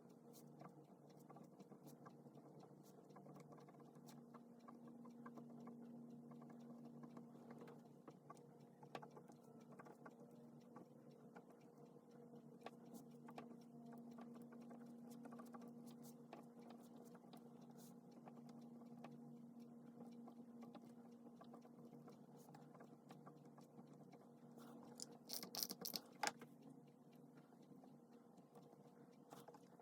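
Faint scratching and small taps of a pen writing on paper, over a steady low hum, with a short run of louder clicks near the end.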